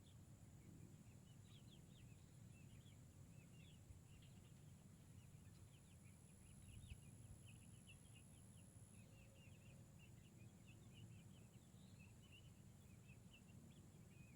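Near silence: faint rural ambience with small birds chirping over and over and a steady high-pitched insect drone.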